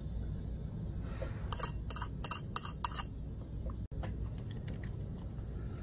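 Hardness-test file scraped across the steel of a motorcycle brake disc in five quick scratchy, clinking strokes, about three a second, with a few fainter scrapes after. The strokes test how hard the disc's steel is.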